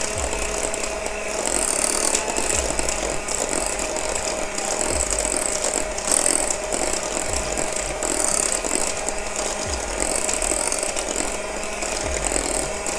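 Electric hand mixer running steadily, its beaters working eggs into choux pastry dough in a glass bowl, with a higher rattle coming and going every second or two. It is switched off at the very end.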